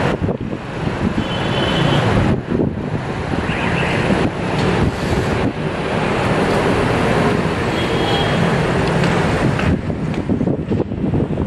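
Steady outdoor traffic noise, a dense rumble and hiss, with wind on the microphone making the level dip and surge unevenly.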